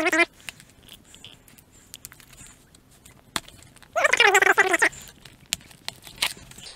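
Taped cardboard mailer box being cut open with a knife and its flaps folded back: quiet rustling and scraping of cardboard and packing tape, with a few sharp clicks. A short pitched sound about four seconds in is the loudest moment.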